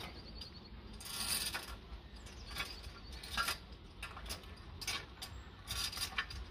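Metal chain and lock on a wooden plank fence being handled: irregular metallic clinks and rattles, a handful of them spread over several seconds.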